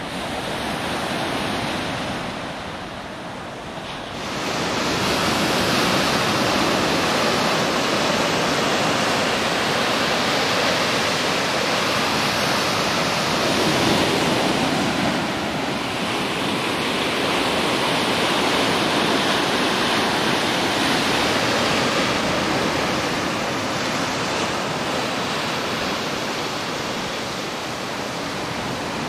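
Small surf washing onto a sandy beach: a steady rushing hiss that swells and eases. It is softer for the first few seconds and grows fuller about four seconds in.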